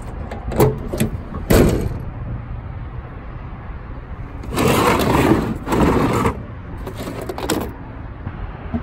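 Knocks, then scraping, as things are moved about in a pickup truck's bed on its ribbed liner: a few sharp knocks in the first two seconds, two longer scrapes around the middle, and a shorter scrape after them.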